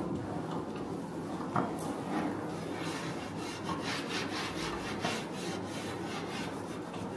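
Hands rubbing and handling a rattan dining chair's seat and frame: a run of short rubbing and rustling strokes.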